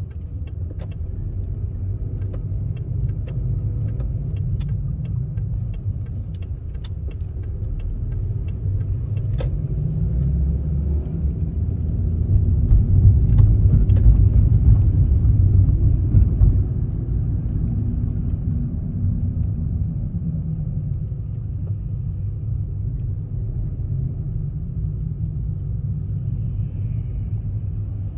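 Car driving, heard from inside the cabin: a steady low rumble of engine and tyres that swells for a few seconds in the middle as the car gets going. For about the first third the turn-signal indicator ticks evenly, about one and a half ticks a second, then stops.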